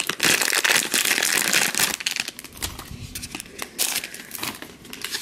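Thin clear plastic wrapper crinkling as hands unwrap a blind-bag toy. It crackles densely for about two seconds, then in scattered crackles.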